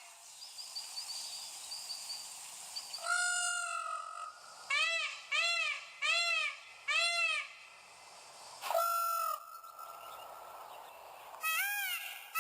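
Indian peafowl calling: a long call about three seconds in, then a run of four short arched calls about half a second apart, another long call near nine seconds, and a new run of short calls near the end. Faint high chirping from a small bird in the first couple of seconds.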